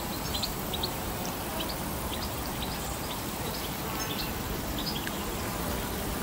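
Outdoor lakeside ambience: a steady rushing hiss, with short high bird chirps scattered through it, several a second in the first half and fewer later.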